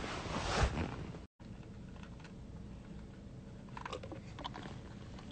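Rustling and bumping noise of a phone being handled close to its microphone, loudest in the first second. The audio cuts out briefly a little over a second in, then leaves a low hiss with a few faint clicks.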